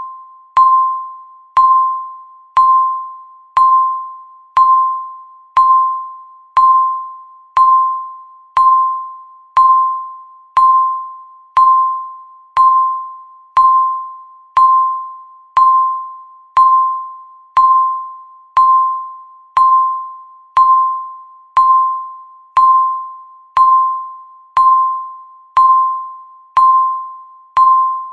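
Countdown timer's electronic ding: a single clear, bell-like tone struck once a second, each stroke fading away before the next.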